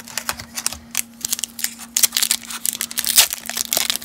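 A foil baseball card pack wrapper being torn open and crinkled: a run of crackling rips and rustles that gets louder about halfway through.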